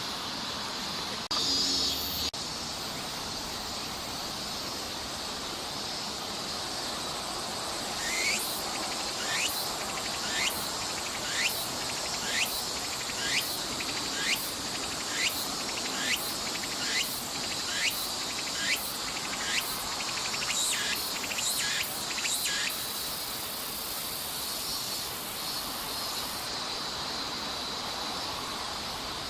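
Tsukutsukuboshi cicada (Meimuna opalifera) singing one full chorus over a steady high insect buzz. From about eight seconds in it repeats a rising phrase about once a second, quickening near the end. It then closes with a few seconds of continuous buzzing. A brief louder noise sounds about a second in.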